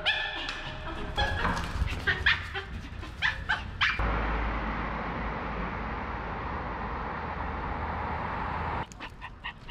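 Maltese dogs whining and yipping in short high cries. About four seconds in, this gives way to a steady hum of road traffic, which cuts off abruptly near the end.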